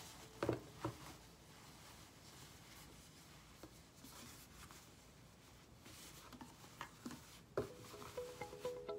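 Fabric being handled quietly at a sewing machine, with two soft knocks about half a second and a second in and another near the end. In the last second the sewing machine starts stitching, a steady hum with evenly repeating stitch pulses.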